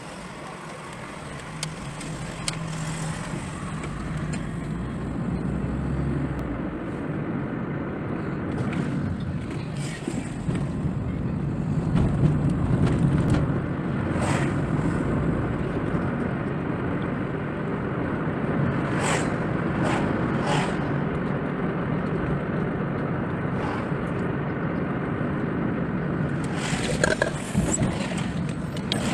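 Car being driven, heard from inside the cabin through a windscreen-mounted camera: steady engine and road noise, with a few short knocks or rattles scattered through it.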